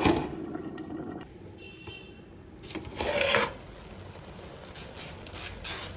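A metal cooking-pot lid being handled: a knock at the start, a louder brief clatter about three seconds in, and a few light knocks near the end.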